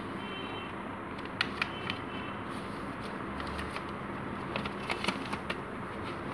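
Square sheet of paper being folded and creased by hand into a paper fortune teller: a few soft crinkles and ticks scattered through the middle, over a steady background hiss.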